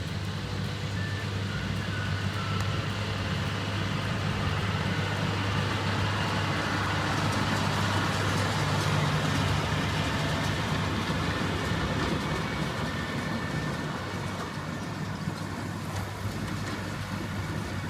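Tractor engine running steadily as it pulls a CLAAS round baler through hay, with the baler's mechanical clatter over it; it grows louder towards the middle and eases off again.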